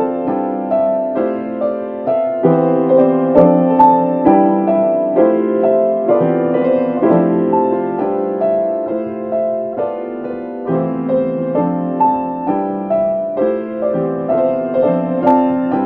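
Piano playing a short repeating figure over and over, two parts of the same pattern layered so that one runs slightly out of step with the other.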